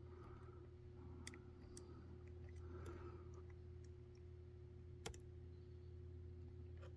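Faint scraping and occasional sharp clicks of a lock pick working the pin stack of a Medeco Keymark pin-tumbler lock, with the strongest click about five seconds in.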